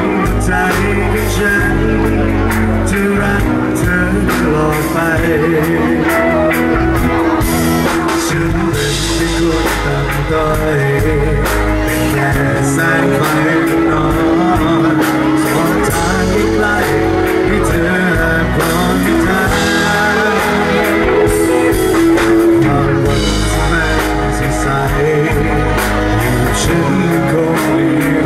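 A male vocalist sings a Thai pop song into a microphone, backed by a live band with drum kit, in a continuous loud performance.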